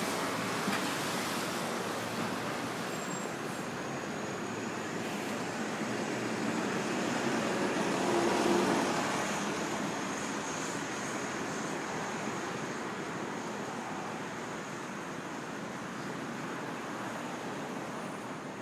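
City street traffic noise: a steady wash of passing cars that swells about eight seconds in, then eases off.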